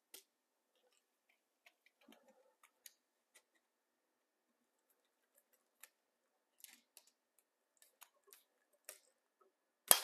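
Faint, irregular clicks and ticks of a torque screwdriver and its bit turning a screw on an electrical receptacle's terminal, with a sharper click near the end as the bit comes out of the driver.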